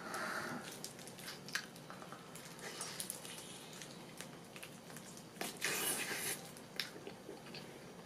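Close-up eating sounds of a person biting and chewing tiger prawn meat: wet smacking clicks throughout, with a louder, longer squelch about five and a half seconds in.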